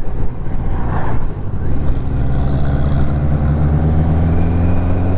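Touring motorcycle's engine running on the road, with a low rumble of wind and road noise. From about two seconds in, the engine note steadies and climbs slowly as the bike accelerates.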